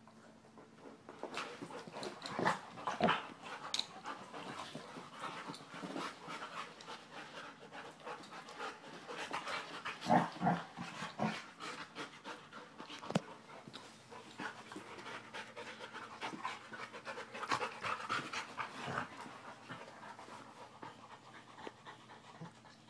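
Two dogs play-wrestling on a carpet, panting hard, with a few louder short sounds as they mouth and tussle.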